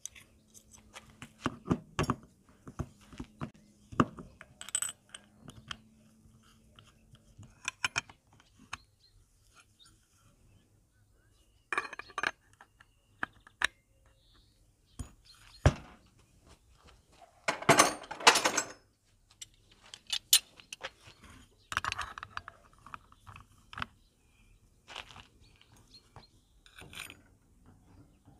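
Scattered metallic clinks and knocks of steel scooter clutch parts and a large open-end wrench being handled, with a denser burst of clattering about 18 seconds in.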